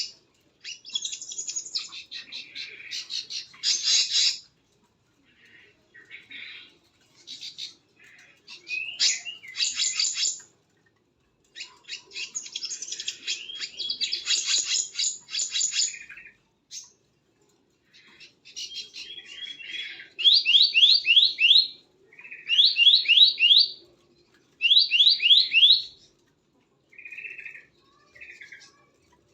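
Songbirds chirping and calling in bursts of high, rapid notes with short pauses between. In the last third come four loud phrases, each a quick run of four or five sweeping notes, then two softer short calls.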